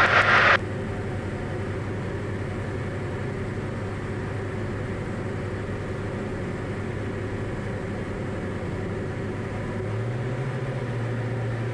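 Diamond DA40's engine and propeller droning steadily, heard from inside the cockpit; near the end the note steps up slightly and gets a little louder.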